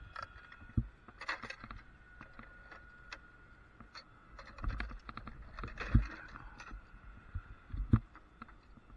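Metal clicks, clinks and knocks of a lineman's hands handling an aluminium cable lasher and its clamps, irregular and scattered, with heavier thumps about six and eight seconds in.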